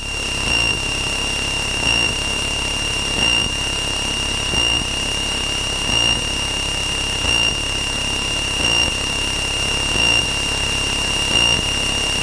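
Cockpit noise of a Cessna 162 Skycatcher in flight: its Continental O-200 engine and propeller running steadily, with a high steady whine that swells faintly about every second and a half.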